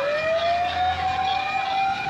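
Fire truck siren wailing: its pitch sweeps up at the start and holds steady and high, while a second siren's falling tone overlaps it.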